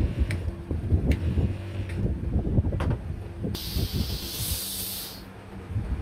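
A burst of pressurised gas hisses from a hose for about a second and a half, starting a little past the middle. Before it, metal parts knock and clatter over a steady low hum.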